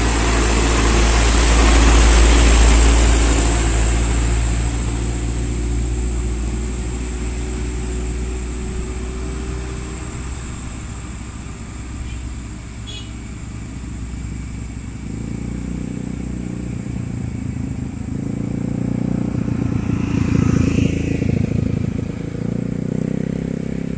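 Road vehicle engines passing on a steep incline: a heavy low engine rumble fades away over the first few seconds, then another engine comes up, loudest about twenty seconds in, and eases off near the end.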